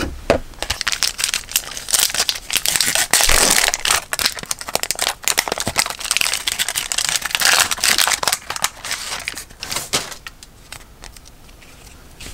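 Plastic-and-foil basketball card pack wrapper crinkling and tearing as it is ripped open and handled, a dense run of crackles that eases off near the end.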